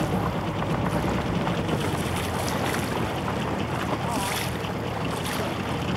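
Ship's engine running with a steady low rumble, under wind noise on the microphone.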